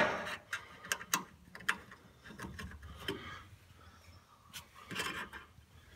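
Scattered light clicks, taps and rustling of hands handling parts and wiring inside an open gas furnace cabinet.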